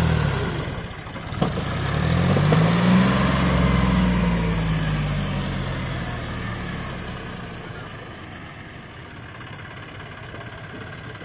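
John Deere 5204 tractor's three-cylinder diesel engine labouring under a heavy load of sand in its trailer. The engine note dips, climbs again about a second and a half in, then slowly falls away and grows quieter over the last few seconds, with a single sharp click early on.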